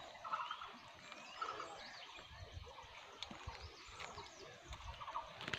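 Faint forest ambience with scattered small bird chirps and short whistled glides, over a low rustling background.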